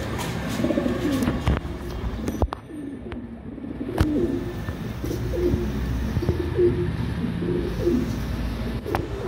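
Lahore fancy pigeons cooing: repeated low coos, overlapping one another, with a few sharp clicks among them.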